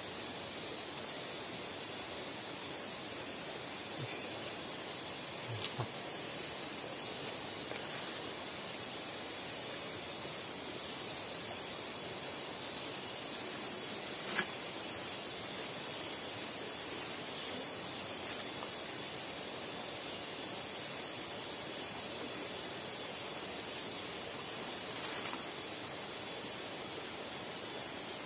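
Steady outdoor background hiss with a faint high steady tone above it, broken by a few faint soft knocks.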